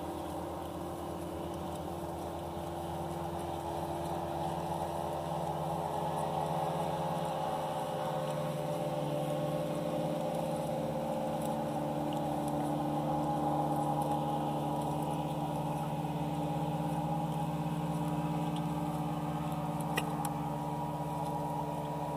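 A motorboat engine running steadily at an even pitch, slowly growing louder to a peak about two thirds of the way through and then easing a little. There is a single sharp click near the end.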